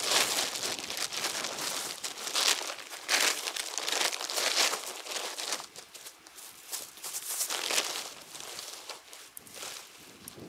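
Fabric of a Quechua MH100 dome tent rustling and crinkling as it is unrolled, shaken out and spread on the ground, in irregular surges.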